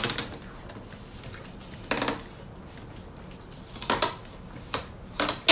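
Packing tape ripping off the roll in short pulls, about five across the stretch with the last the loudest, as it is run and pressed onto a cardboard box.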